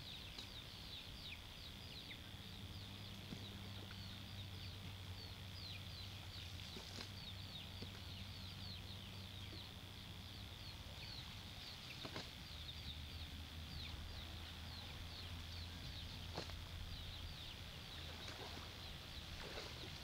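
Young chickens peeping: a steady stream of short, falling chirps, several a second, over a steady high whine and a low hum. A few faint knocks break in now and then.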